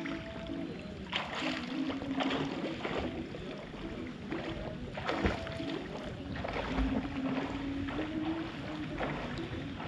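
Pool water lapping and splashing against a camera sitting at the water line, in irregular rushing washes as the ripples from a swimmer's strokes reach it.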